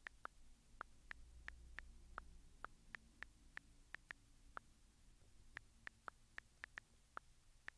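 Light, quick taps of typing on a phone, each a short click with a small pitched ring, two or three a second at an uneven pace, as a food order is entered.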